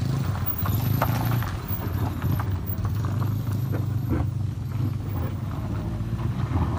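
Engines of two SUVs running as they pass at low speed on a dirt road, a steady low drone, with irregular clicking and cracking of loose stones and gravel under the tyres.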